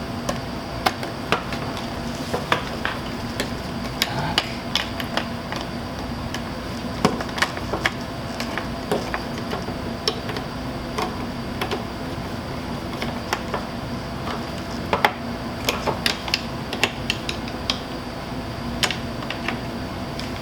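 Scattered small clicks, clinks and light knocks of plastic and metal parts being handled as a replacement Toyota Sienna rear door handle is fitted, over a steady hum.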